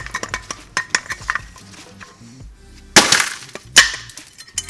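Brake pads and their metal clips clinking as they are popped out of the caliper bracket, a rapid run of small clinks, then two loud metal clanks with a short ring about three and four seconds in.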